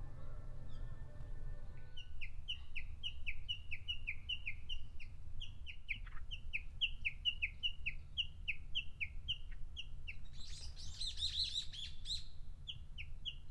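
A small bird calling a long run of short downward-slurred notes, about three a second, with a louder burst of rapid twittering about ten to twelve seconds in. A low rumble lies underneath, and background music ends about two seconds in.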